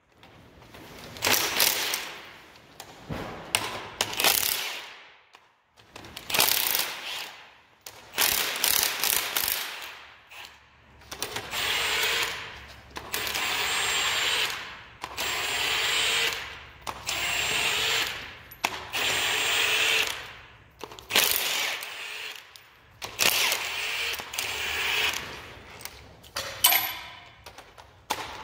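Ratchet wrench backing out the cylinder head bolts of a 5.9 Magnum V8, in repeated bursts of ratcheting about one every two seconds.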